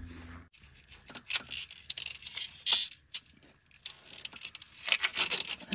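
Hands handling air lines and plastic hose loom on a semi truck's frame rail: scattered light scraping, rustling and clicking.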